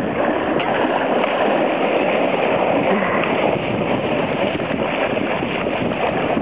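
Water splashing and sloshing steadily as a group of people wade through shallow, icy lake water.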